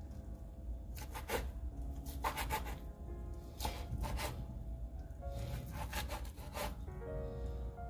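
Kitchen knife sawing through a stack of sliced ham on a wooden cutting board, in four short runs of quick back-and-forth strokes, over background music.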